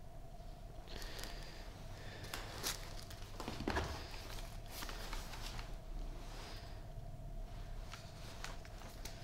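Handling noises from unboxing: scattered rustles and clicks of packaging and parts being handled, the loudest a knock a little under four seconds in, over a faint steady hum.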